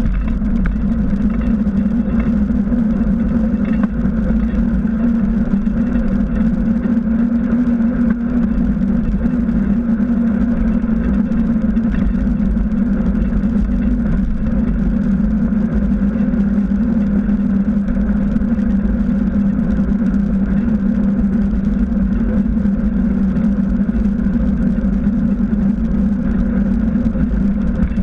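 Steady wind and road rumble picked up by a bike-mounted camera as a mountain bike with knobby tyres rolls along an asphalt street, with a steady low hum.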